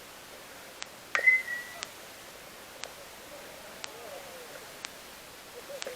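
A baseball bat striking the ball about a second in: a sharp crack with a short ringing ping. A faint tick repeats about once a second throughout.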